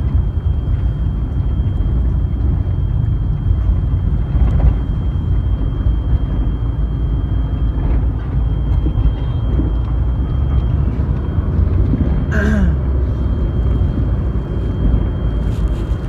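Steady low rumble inside a moving car's cabin: road and engine noise with strong dust-storm wind pressing on the car. A faint steady high whine runs under it, and a brief sound falling in pitch comes near the end.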